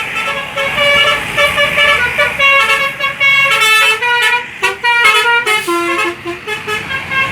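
Bus 'telolet' horn, a Basuri multi-tone musical air horn, playing a quick tune of short stepped notes, very shrill.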